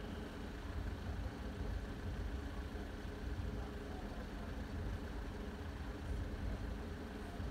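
Steady low rumble of idling engines.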